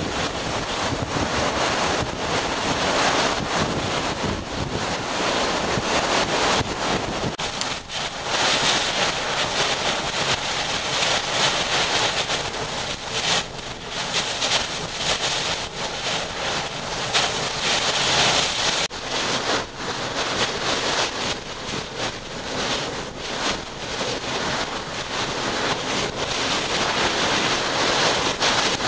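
Hurricane-force wind and driving rain, heavy wind noise on the microphone, loud and unbroken; the sound changes abruptly twice, about 7 and 19 seconds in, and part of it is heard from inside a vehicle.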